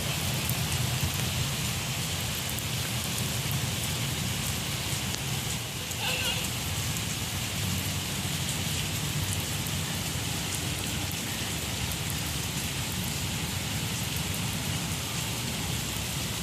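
Steady rain falling on surfaces: an even hiss with many fine drop ticks.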